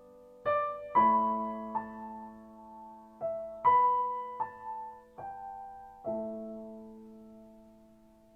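Slow, gentle solo piano music: single notes and chords struck one after another and left to ring and fade.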